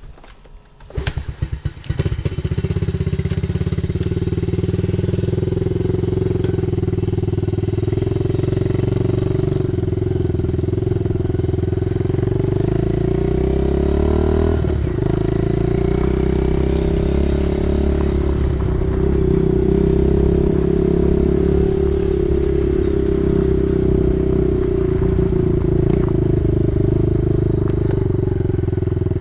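Yamaha TTR-90 dirt bike's small four-stroke single-cylinder engine running as the bike is ridden. After a few knocks, the engine comes in loud about two seconds in and runs steadily, with its pitch rising and falling around the middle.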